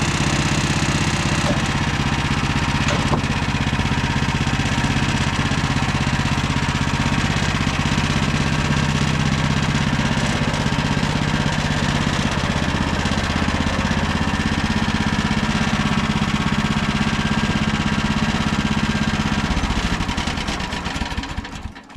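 Engine of a MechMaxx SM32 portable bandsaw mill running steadily during milling of a pine log, then winding down and stopping near the end.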